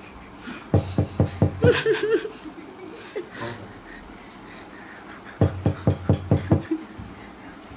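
A person laughing in two short runs of quick, evenly spaced pulses, about five a second: one about a second in, the other about five seconds in.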